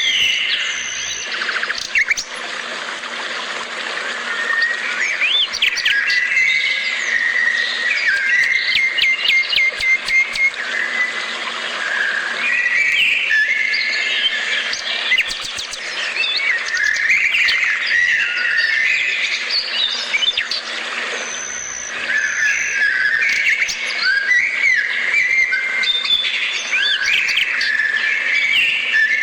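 Songbirds singing: many overlapping chirps, trills and whistles in a continuous dawn-chorus-like chatter.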